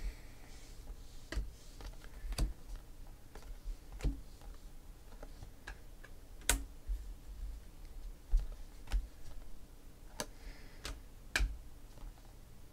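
Trading cards being flipped one by one off a hand-held stack, each card giving a sharp, light click at an uneven pace.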